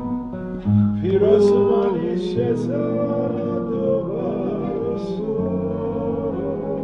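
Song with several voices singing held notes in harmony, with vibrato, over a low sustained accompaniment; the voices come in strongly about a second in.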